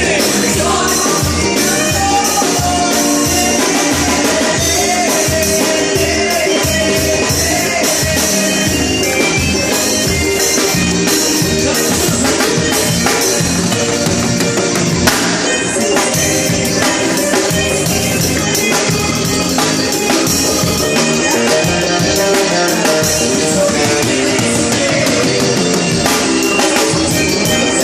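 Forró band playing, with a drum kit keeping a steady, driving beat under melody lines.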